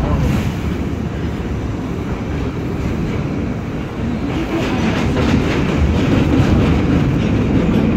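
R68 subway car running through a tunnel, heard from inside the car: a loud rumble of wheels on rail with quick clacking over the rail joints, growing louder about halfway through.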